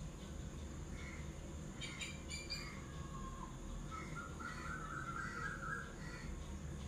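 Birds chirping in the background: a few short chirps, a falling whistle, then a warbling trill about four to six seconds in, over a low steady hum.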